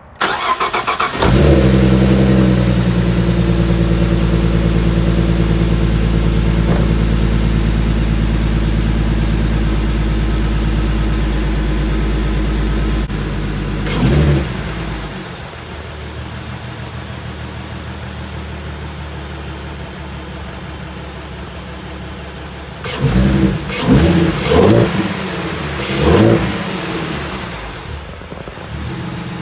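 Ford Mustang 3.7-litre V6 breathing through a Roush cold air intake, cranking and catching right at the start, then running at a loud, steady fast idle. About fourteen seconds in it blips once and settles to a quieter idle; near the end it is revved quickly a few times and drops back to idle.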